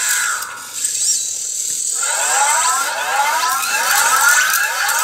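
Anki Cozmo toy robot eating from its glowing Light Cube: its speaker plays a short electronic tone, then from about two seconds in a fast, continuous run of rising electronic chirps.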